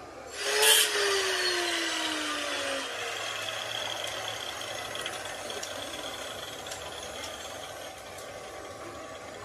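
Metal lathe starting with a sudden loud burst about half a second in, then running steadily.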